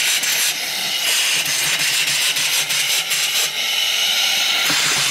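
Small single-cylinder reversing steam engine running on steam, with a loud steady hiss of steam and faint rapid exhaust beats. The hiss shifts in tone a couple of times as the forward-reverse lever is worked.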